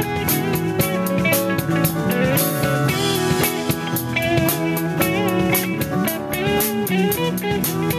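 Live rock band playing an instrumental passage: guitars and keyboard over a drum kit keeping a steady beat, with a lead line of wavering, bent notes.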